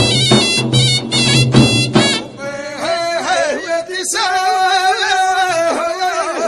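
Tunisian folk music: a wind instrument plays quick phrases over a low drone for about the first two seconds, then stops and a solo voice sings one long, winding melismatic phrase unaccompanied.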